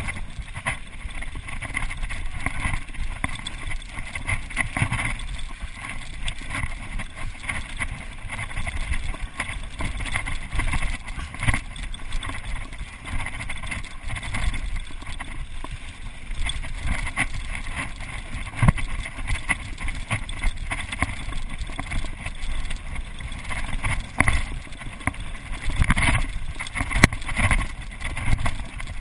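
Mountain bike riding fast down a gravel and dirt trail: steady tyre rumble over the ground, with frequent knocks and rattles as the bike hits bumps.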